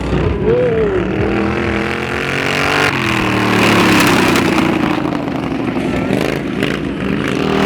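Racing lawnmower engines running hard around a dirt track. About three seconds in, a louder one comes close, and its pitch slowly drops as it goes by.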